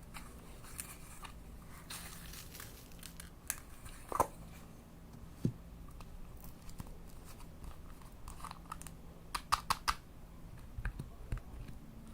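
Slime being squeezed and poked by hand, giving irregular small clicks, crackles and pops as air pockets burst. A quick run of several clicks comes near the end.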